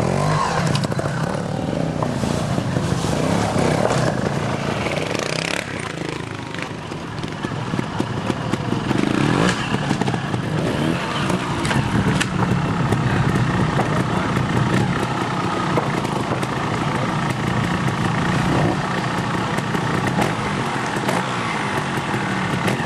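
Trials motorcycle engine running and revving up and down as the bike climbs over rock steps, with a few sharp knocks along the way.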